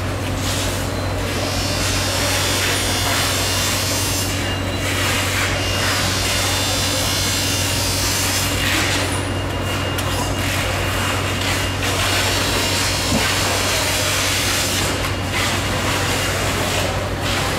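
Large knife sawing and scraping through the flesh and bone at the head of a giant bluefin tuna, with a steady low hum underneath.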